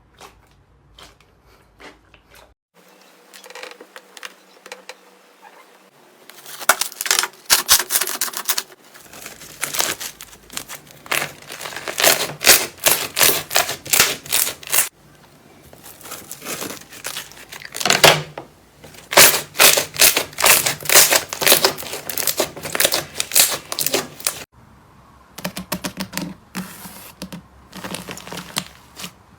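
Slime being pressed and squeezed by hand, giving rapid runs of crackling and popping clicks that come and go in several stretches, with sudden changes where one clip cuts to the next.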